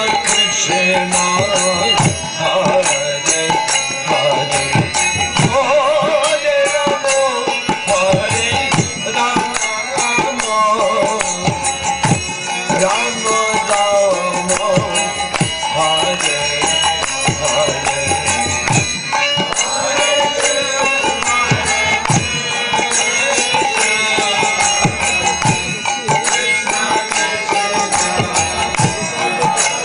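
Devotional kirtan: a lead voice and group chanting over a steady harmonium, with a mridanga drum beating a fast rhythm and hand cymbals ringing.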